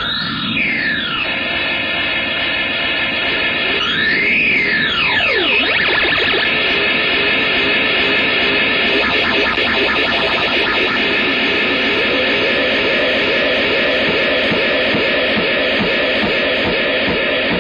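Loud, heavily distorted electric-guitar rock music with a harsh, noisy texture. A sweeping rise and fall in pitch comes about four seconds in.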